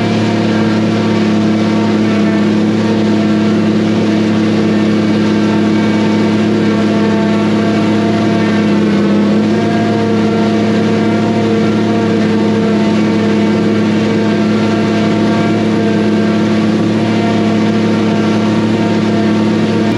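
Case IH MX285 tractor running steadily under load, driving a pull-type forage harvester through its PTO while chopping rye. Its pitch sags slightly about nine seconds in.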